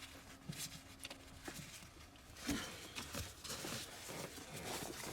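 Faint scattered clicks and taps of hands and metal tools working on a car battery cable terminal, with one louder knock about two and a half seconds in.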